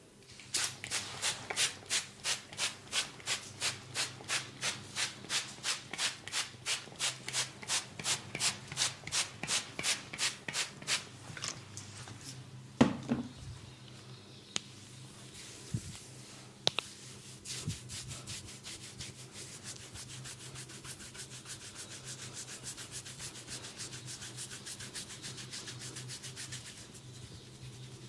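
Hands rubbing briskly over skin in a massage: even strokes about three a second, then a single sharp knock, a few small clicks, and faster, lighter rubbing.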